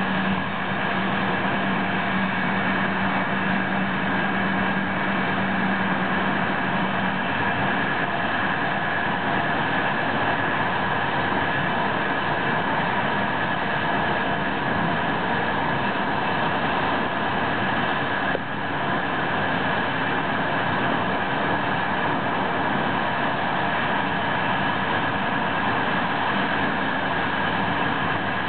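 Train running at speed, heard from inside the cab: a steady rumble of wheels on rail with a constant high-pitched whine. A low hum drops out about seven seconds in.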